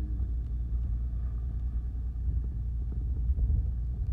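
Fishing boat's engine running steadily: a low rumble with a faint, even hum over it.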